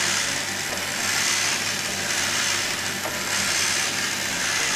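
Battery motor and plastic gearbox of a Transformers Encore Omega Supreme toy driving its walking mechanism: a steady whirring, grinding gear noise that swells and eases about once a second.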